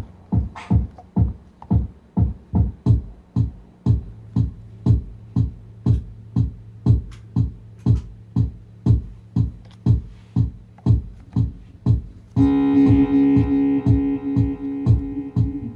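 Electronic music: a steady drum beat of about two hits a second over a low held bass note, joined about twelve seconds in by a loud sustained synthesizer chord.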